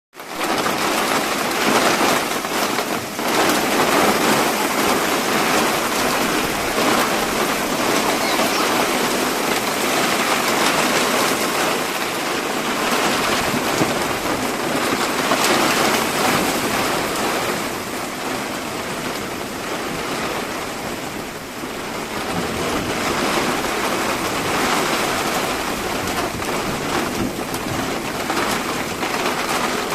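Hail and heavy rain pelting down, a dense steady hiss of downpour shot through with many sharp individual hits of hailstones on hard surfaces.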